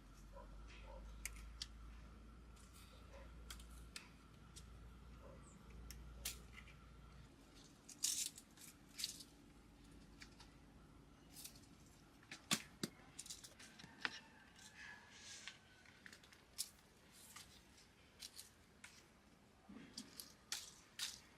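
Irregular sharp snips, clicks and light rustling of tomatoes being cut from the plant and handled during harvest, with a faint low hum for the first several seconds.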